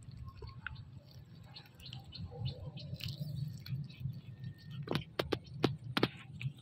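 Kittens chewing on a fish, with small scattered clicks and a run of sharper clicks about five seconds in.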